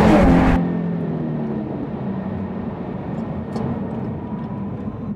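Jaguar F-Type's supercharged 3.0-litre V6 running loudly, its exhaust made louder by the button on the dash, cut off abruptly about half a second in. After that, the same engine hums steadily and much more quietly, heard from inside the cabin.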